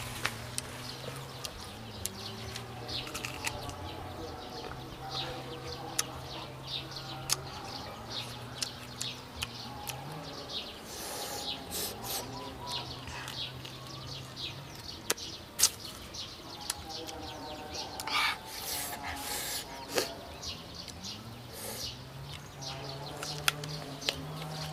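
Crunching bites and chewing of unripe green mango slices, with many sharp crackling clicks and a few louder crunches.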